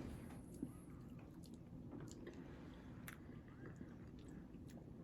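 Faint chewing of a bite of frosted strawberry cake, with a few soft scattered clicks.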